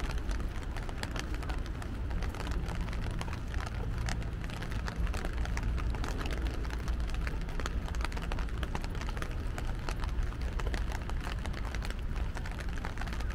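Rain falling steadily: a dense, even patter of small drop ticks over a continuous low hum of city traffic.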